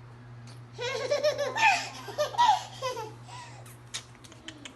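A young child laughing in a run of high-pitched giggles, starting about a second in and lasting about two and a half seconds, then a few light taps.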